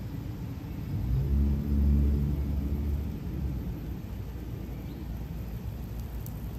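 A motor vehicle's engine humming as it passes, swelling about a second in, loudest around two seconds, then fading back into a steady low street rumble.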